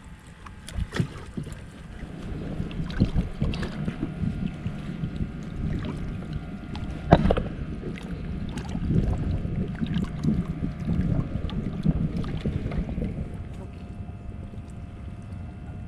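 Wind noise and the low rumble of a small fishing boat at sea, with scattered knocks and clicks on the boat; one sharp knock about seven seconds in, and a faint steady hum underneath.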